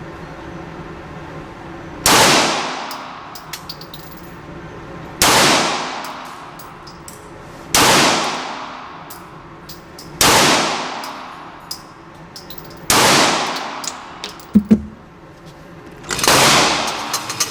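Six 9mm shots from a Glock 26 Gen 4 compact pistol, fired slowly about two and a half to three seconds apart. Each shot has a long echoing tail, and there are small metallic clinks between the shots.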